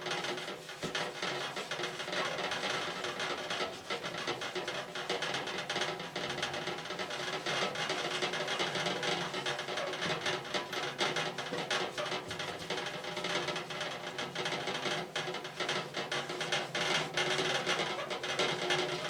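A damp rag coated with wood ash scrubbed back and forth over a fireplace door's glass, a dense run of rubbing strokes, over background music.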